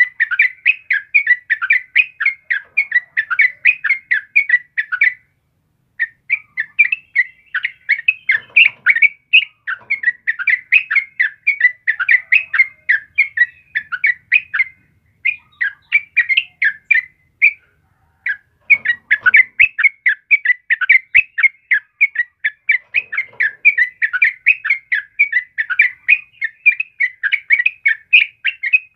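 Trucukan (yellow-vented bulbul) singing: a fast, continuous run of short chattering notes, several a second, broken by a few brief pauses.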